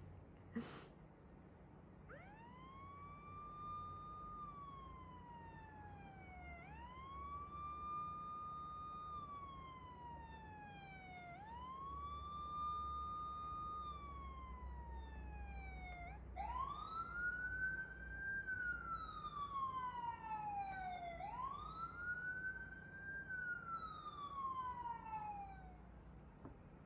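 Siren wailing in five repeated cycles, each rising quickly, holding briefly, then falling slowly over about four and a half seconds. It grows louder about two thirds of the way through and stops near the end.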